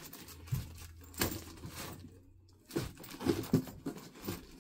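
Plastic packaging crinkling and rustling inside a cardboard box as cricket bats are handled and lifted out, with a few sharp knocks and bumps about a second in and again about three seconds in.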